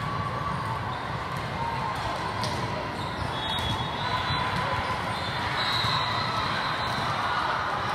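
Volleyball being played in a busy indoor hall: balls being struck and bouncing on the court over a steady din of voices, with a few short high squeaks or whistles around the middle.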